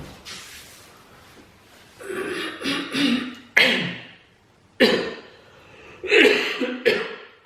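A man coughing repeatedly: a run of about four harsh, sudden coughs roughly a second apart in the second half.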